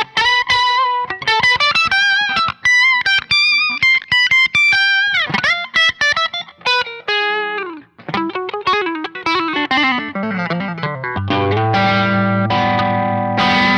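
Seven-string multiscale electric guitar with two of its series-wired single-coil pickups out of phase, giving a phase-cancelled tone. Quick single-note lines with a pitch bend about five seconds in, a descending run, then chords left ringing from about eleven seconds on.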